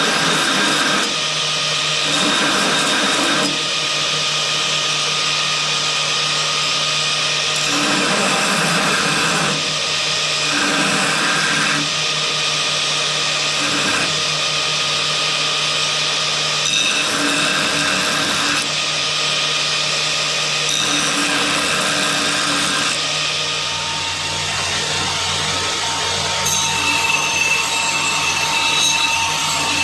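Electric grinder running with an abrasive working a forged steel axe head: a steady motor whine with rasping that comes and goes every couple of seconds as the metal is pressed on and eased off, and a change to higher whining tones near the end.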